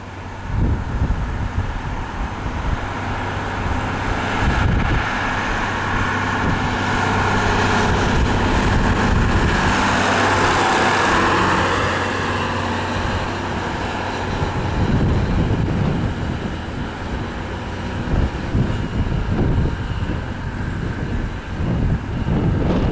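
Scammell Explorer truck's Gardner 180 diesel engine running as the truck drives up and passes close by. The sound grows as it approaches, is loudest as it passes about ten to twelve seconds in, then fades as it pulls away.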